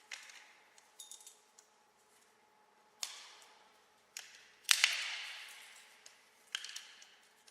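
Sharp metal clanks and short clinking rattles, about six hits or clusters, each trailing a long reverb decay added in processing. The loudest is a double hit about two-thirds of the way through.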